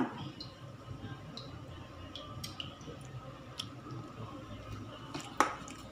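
Cooking oil poured in a thin stream into a nonstick frying pan: a soft trickle with scattered small ticks, and one sharper click about five and a half seconds in.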